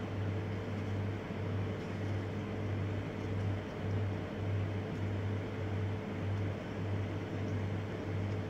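Steady low machine hum with a drone that swells and fades in a slow, regular beat.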